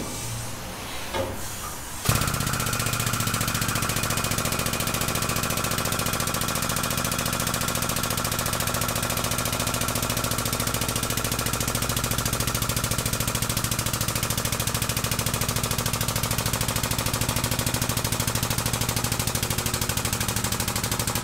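Air-over-hydraulic jack of a tube bender pumping, a steady rapid pulsing that starts about two seconds in, while a steel tube is bent.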